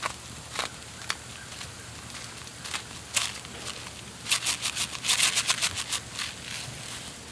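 Pork belly and vegetables sizzling on a griddle over a campfire: a steady hiss with sharp crackles of popping fat, thickening into a quick flurry of pops a little past the middle.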